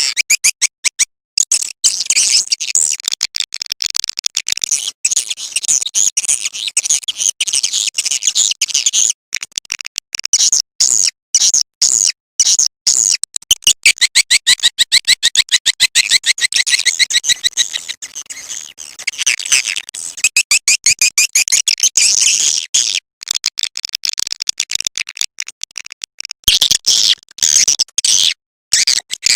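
Swiftlet lure call: fast, high-pitched twittering chirps, repeated densely and broken by many abrupt short gaps of silence.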